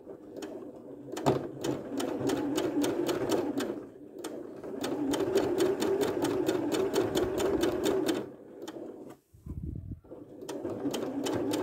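Bernette sewing machine running in spells during free-motion quilting, the needle stitching as a fast even ticking over the motor's hum. It eases briefly about four seconds in, stops for about a second near the end, then starts again.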